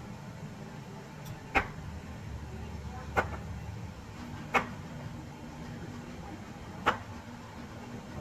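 Four sharp, short knocks or clinks, spaced unevenly about one and a half to two seconds apart, over a low steady hum.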